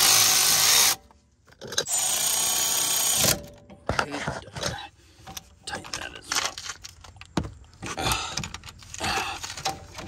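Cordless power tool running a rear brake caliper bolt in, in two short runs with a thin high whine. Light metal clicks and knocks follow.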